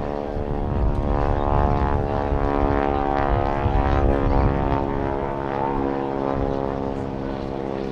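Piston radial engine and propeller of a vintage wingwalking biplane flying a display, a steady droning note that grows louder as the plane passes and then eases away.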